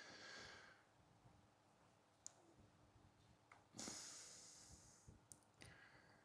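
Near silence: two soft breaths, one at the start and one about four seconds in, and a few faint clicks from hands handling the line.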